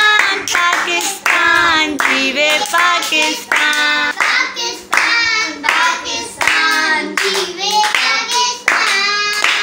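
A young girl singing in a high child's voice, with children clapping along.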